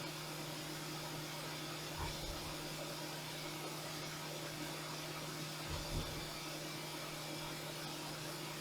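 CNC milling machine running while machining a titanium keycap: a steady hum over an even hiss, with a few soft low thumps about two and six seconds in.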